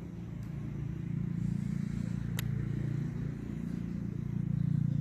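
A low, steady motor hum that grows a little louder after about a second, with one sharp click about two and a half seconds in.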